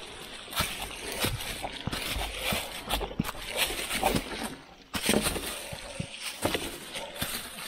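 Dry fallen leaves crunching and rustling under footsteps and bike tyres as a mountain bike is pushed up a steep leaf-covered slope: an irregular run of crackles and scuffs that stops briefly about two-thirds of the way through, then carries on.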